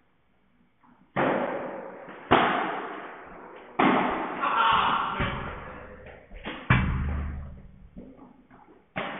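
Padel ball struck back and forth by padel rackets and rebounding off the court's glass walls during a rally: about five sharp hits a second or two apart, each ringing on in the echoing hall.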